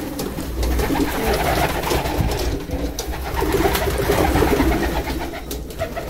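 Several homing pigeons cooing steadily in a loft, their calls overlapping.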